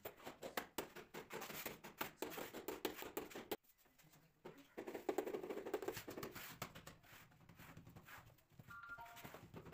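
Steel trowel scraping and clicking against a tile as mortar is spread on its back, in quick short strokes. This stops abruptly after about three and a half seconds, followed by handling and pressing noises as the tile is set against the wall.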